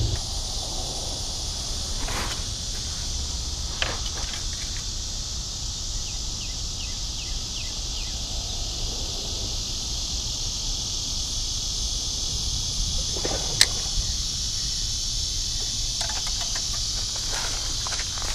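Steady high-pitched chorus of insects. A few sharp clicks come over it, the loudest about two thirds of the way through. Near the end there is rustling and footsteps on dry leaf litter.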